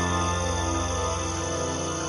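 Ambient new-age background music: sustained drone-like tones.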